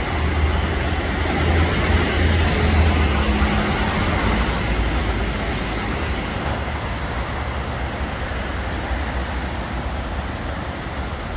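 City road traffic noise: a steady rumble of many cars and heavier vehicles. A deeper engine hum stands out during the first few seconds, then the noise eases a little.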